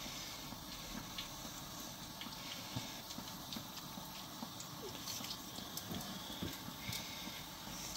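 Hot oil sizzling with irregular small pops and crackles as a batter-coated bread pakora fries, with faint wet squishing of bread being pressed and turned in thick batter.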